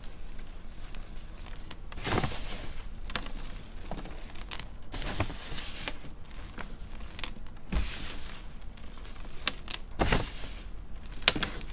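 Hands squeezing and crushing clumps of packed baking soda: a run of irregular crunching and crumbling, with several louder crunches spread through.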